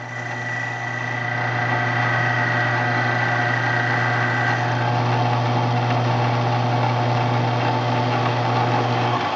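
Drill press spinning a mounted grinding point against the inside edge of a steel punch-press top jaw, taking off a thousandth or two at a time. The motor hums steadily under a grinding hiss, with a thin high whine in the first half. The low hum cuts off near the end.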